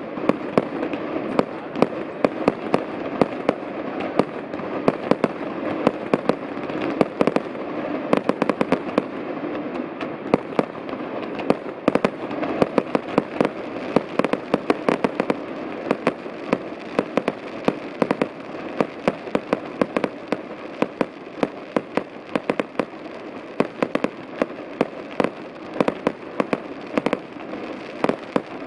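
Fireworks display going off without pause: many sharp bangs every second over a steady noise underneath.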